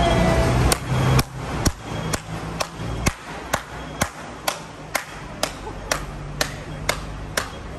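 An old shoe sole beating a folded paper name in a villain-hitting (da siu yan) ritual: a steady run of sharp slaps, about two a second, starting just under a second in. Low traffic rumble sits under the first second.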